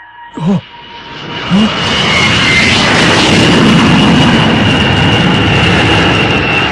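Animated sound effect: a loud rushing roar that swells over about a second and then holds steady, with a thin high whistle running through it.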